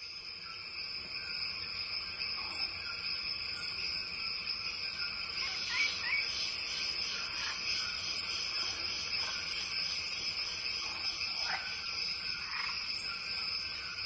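Chorus of insects: a steady high-pitched trilling with a faster pulsing shrill above it, and scattered short lower calls. It fades in over the first couple of seconds.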